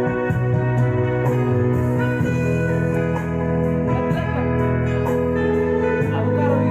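Instrumental break of an Indonesian pop karaoke backing track: held chords with guitar over them, the chord changing about two seconds in and again near the end.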